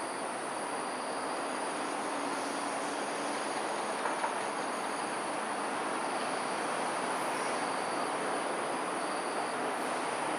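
Steady, unchanging rushing background noise of an urban evening, with a faint continuous high-pitched hum over it.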